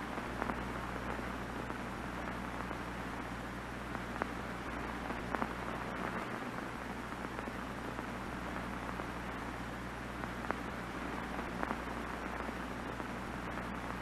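Steady white-noise static of an off-air television over a low hum, with a few small crackles scattered through it.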